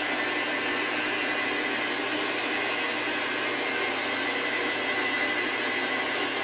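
Metal lathe running steadily while drilling into a metal bar with a bit held in the tailstock, an even whir with a faint steady hum.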